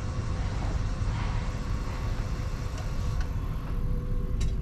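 Car engine idling, heard from inside the cabin: a steady low rumble with a faint steady hum over it. A light click or two near the end.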